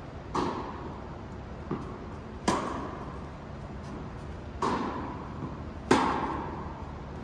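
Tennis rally: a tennis ball struck by rackets in turn, four sharp pops about every one and a half to two seconds with a fainter knock between the first two. Each hit rings out with echo in the large indoor court hall.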